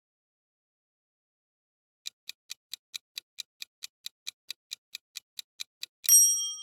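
Countdown timer sound effect: quick, even clock-like ticks, about four or five a second, starting about two seconds in and running for about four seconds. A short bright chime then rings out near the end, marking that the answer time is up.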